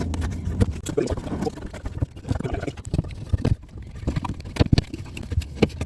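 Irregular clicks, knocks and rustles of hands handling plastic trim and tools while working a car's rear corner light loose.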